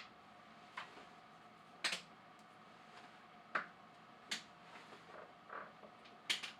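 About half a dozen scattered light clicks and knocks as a boring head in its Cat 40 holder is handled and fitted into a milling machine spindle, over a faint steady hum.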